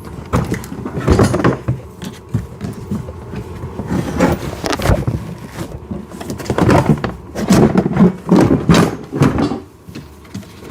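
Irregular knocks, scrapes and clatter of hollow plastic parts being handled as a kids' ride-on car body is moved and turned back over, in several bursts with a busier stretch in the second half.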